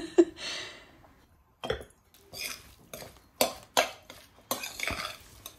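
A few separate clinks and knocks of kitchen ware: a spoon working in a glass mixing bowl of rice stuffing.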